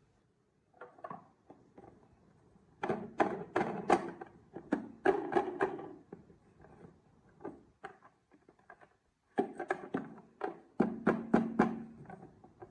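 Marbles running down a wooden HABA marble run, clacking and knocking against the track pieces in rapid runs of sharp clicks. There are two busy bursts, one about three seconds in and another from about nine and a half seconds, with sparse ticks between.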